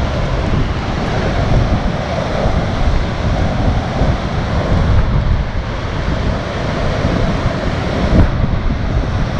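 Heavy storm surf breaking onto rocks and concrete breakwater blocks, with strong wind buffeting the microphone. There is a brief louder jolt near the end.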